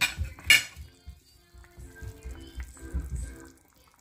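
Two sharp knocks of a kitchen utensil against an enamelled cast-iron pot, one at the start and one about half a second in, then quieter stirring sounds in the pot of soup.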